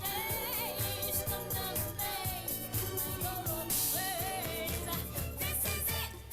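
A soul song with a lead singer over a full band and a steady beat; the music stops abruptly at the very end.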